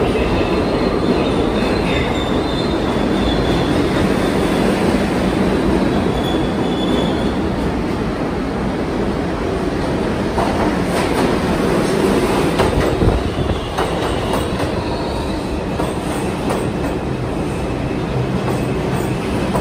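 New York City subway trains running through an underground station: a steady rumble and rattle of steel wheels on the track, with high-pitched wheel squeal at times. Near the end an arriving train runs along the platform close by.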